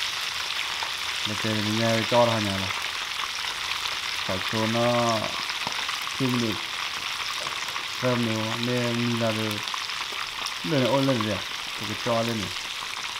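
Whole fish shallow-frying in hot oil in a pan, the oil bubbling and sizzling in a steady hiss. Over it, short low pitched phrases come and go about six times.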